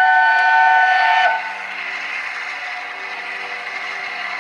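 Whistle of LNER A1 Pacific steam locomotive No. 60163 Tornado, a loud chord of several notes held and then cut off sharply a little over a second in. After it comes the steady rushing noise of the locomotive working its train towards the listener.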